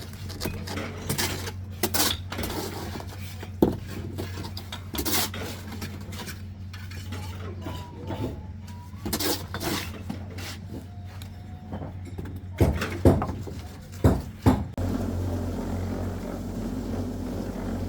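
Metal tools clinking and scraping in a string of sharp knocks, loudest in a quick cluster about two-thirds of the way through. A steady low hum runs underneath and gets louder near the end.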